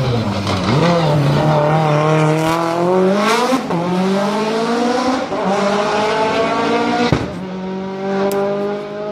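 Mitsubishi Lancer Evolution rally car's turbocharged four-cylinder engine accelerating hard through the gears, its pitch climbing and then dropping at each upshift. A sharp bang comes about seven seconds in, after which the engine runs at a steadier, lower pitch.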